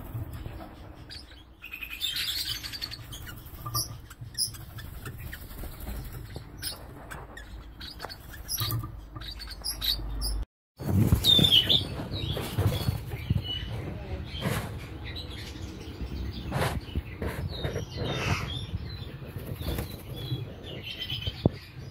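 Splendid parakeets (scarlet-chested parrots) in an aviary: short high chirps and fluttering wing beats as a bird flies between perches. The sound cuts out for an instant a little past halfway.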